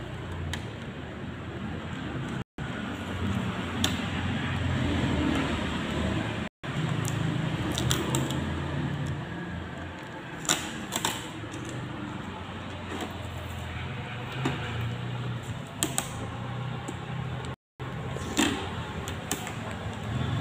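Blue shipping tape being peeled off an Epson L3210 printer's plastic casing, with rustling handling noise and a few sharp clicks over a low steady hum. The sound cuts out briefly three times.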